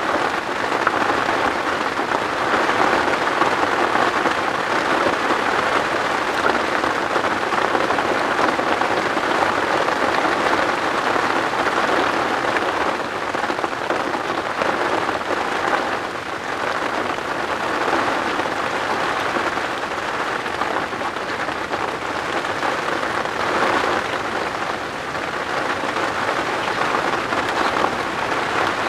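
Heavy rain falling steadily on the tent, a dense, even hiss without a break.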